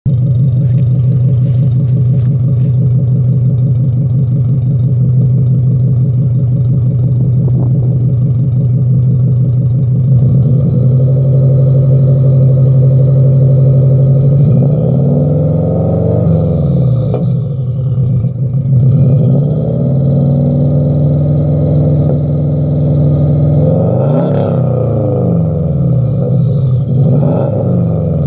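Subaru Impreza WRX's turbocharged 2.0-litre flat-four engine running through a Vortex aftermarket exhaust, heard at the tailpipe: a steady idle for the first half, then revved a few times, the pitch rising and falling with each blip.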